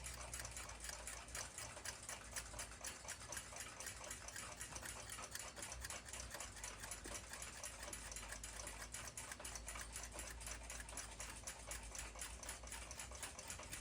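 Mechanical clock escapement ticking faintly, a fast, even run of sharp ticks several times a second, over a low steady hum.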